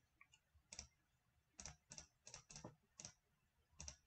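Faint, irregular clicking on a computer, about ten clicks, as the numbers 3.14 × 36 are entered into a calculator app.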